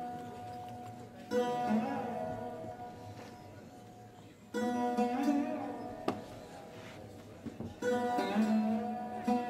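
Afghan rubab being plucked in three phrases: one about a second in, one midway and one near the end. Each opens with a strong stroke and fades as the drone and sympathetic strings ring on.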